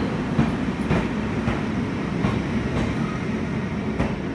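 Shatabdi Express passenger coaches rolling past on the track, a steady rumble with the wheels clicking over rail joints about every half second.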